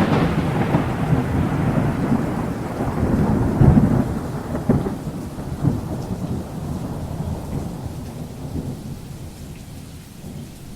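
Thunder rolling and slowly dying away over steady rain, with a few louder rumbles swelling in the middle.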